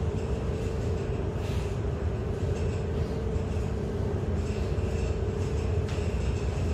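Tugboat's diesel engines running under load, a steady low drone with a constant hum, heard from inside the wheelhouse.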